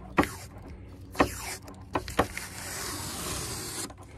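Green painter's tape being peeled off a fiberglass boat panel: a few quick, sharp rips in the first half.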